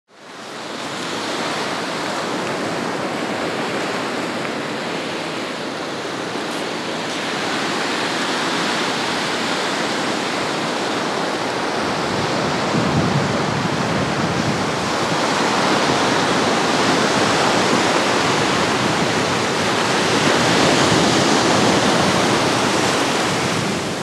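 Black Sea surf breaking and washing onto a sandy beach: a steady wash of waves that fades in at the start and grows a little louder about halfway through.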